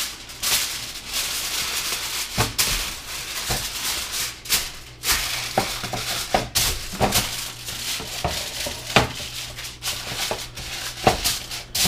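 Aluminium foil being crinkled, folded and pressed around a baking tray, a run of irregular crackling rustles.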